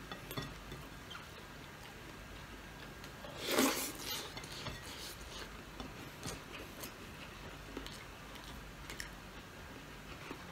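A person eating with his hands from a plate: scattered small clicks and taps of fingers and food against the plate, with one louder, short rustling burst about three and a half seconds in.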